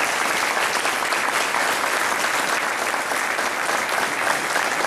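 An audience of several dozen people applauding, a dense, steady clapping.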